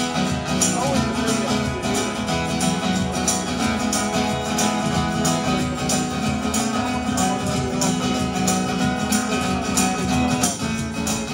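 Live band playing an instrumental break: guitar over a steady drum beat.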